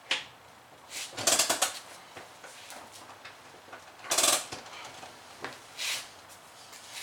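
Four short bursts of clatter and scraping from hand work with tools and parts, the longest about half a second.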